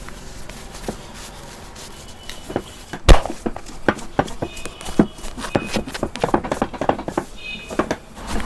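A barber's hands slapping and patting skin during a head and upper-body massage: a run of irregular smacks that come faster from about four seconds in, with one sharp, much louder smack about three seconds in.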